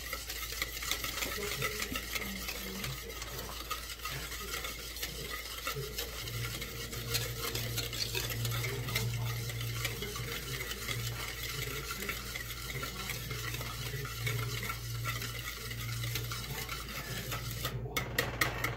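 Wire whisk beating melted butter and sugar in a bowl: a continuous fast scraping and clicking of the wires against the bowl. Near the end the whisking stops and there are a few sharp knocks.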